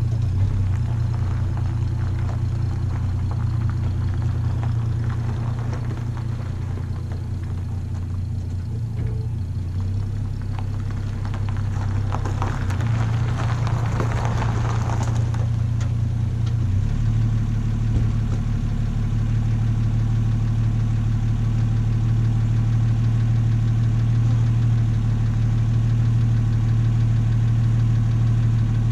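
Plymouth Valiant's 225 slant-six engine running at low speed as the car backs out, with a stretch of tyres crunching over gravel in the middle. About seventeen seconds in the engine note changes and settles into a steady idle; the owner reckons it sounds pretty good but is due a valve adjustment.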